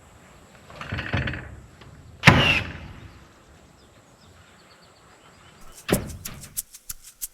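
Work knocks: a scraping rustle, then a sharp bang with a short ringing tail, and near the end another knock followed by a few quick clicks.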